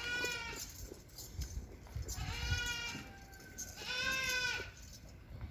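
Goats bleating: three separate drawn-out bleats, one at the start, one about two seconds in and one about four seconds in.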